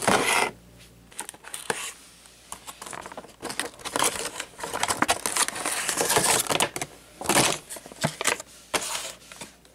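Clear plastic blister packaging being cracked and peeled open by hand: irregular crinkling and crackling with sharp clicks of the plastic.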